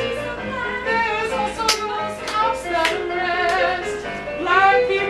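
A voice singing a melodic line over live instrumental accompaniment, with held, gliding notes.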